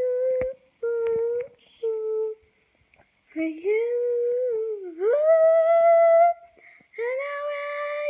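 A girl humming a wordless tune: three short notes, then longer held notes, sliding up in pitch about five seconds in.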